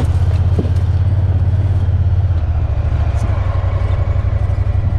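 Off-road utility vehicle's engine running steadily as it drives along: a loud, low drone with a fast, even pulse that eases a little partway through. A few light knocks from the ride sound over it.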